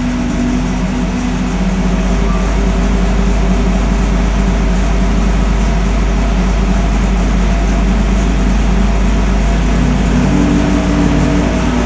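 Naturally aspirated big-block V8 drag-racing engine of about 2,000 horsepower running steadily at low speed on an engine dynamometer, heard from the dyno control room.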